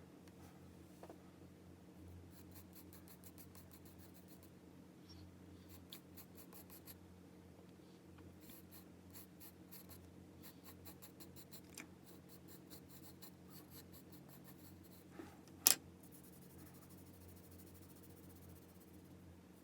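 Graphite pencil drawing on paper: runs of quick, light scratching strokes, with one sharp tap about two-thirds of the way through. A steady low hum underneath.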